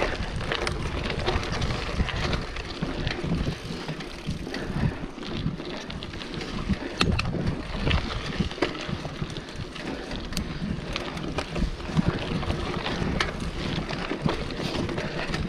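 Mountain bike riding fast down a dirt forest trail: tyres rolling over dirt and roots, the bike rattling with many sharp clicks and knocks over bumps, and wind buffeting the microphone.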